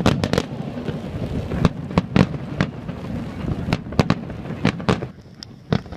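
Fireworks going off in a rapid, irregular series of sharp bangs and crackles, a few every second, the barrage thinning out about five seconds in.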